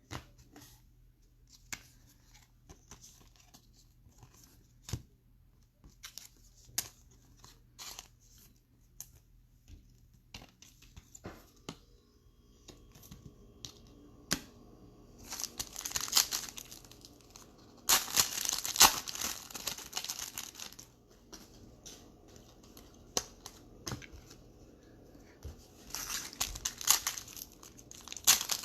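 Baseball card packs being handled and opened: light scattered ticks and taps of cards for about the first twelve seconds, then the pack wrappers crinkling and tearing in several loud stretches, starting about halfway through and again near the end.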